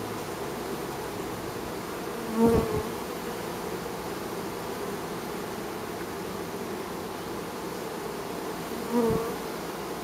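Steady buzzing hum of a crowd of honey bees at the hive entrance. Twice, about two and a half seconds in and again near the end, a single bee buzzes loudly close by, its pitch bending as it passes.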